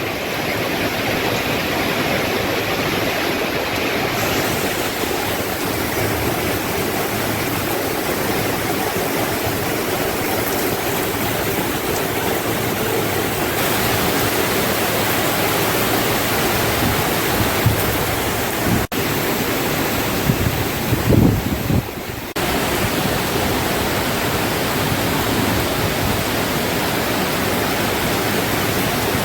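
Heavy rain falling in a steady, dense hiss, with a few duller low thuds about two-thirds of the way through.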